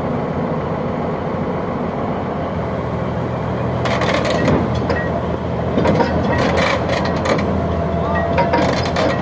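Shantui SD22 bulldozer's diesel engine running steadily, with irregular metallic clanking and scraping starting about four seconds in.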